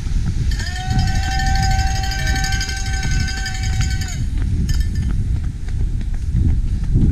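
Running footsteps on a tarmac road over a constant low rumble of wind and movement on the camera's microphone. From about half a second in, a steady high note with overtones is held for about three and a half seconds and then stops.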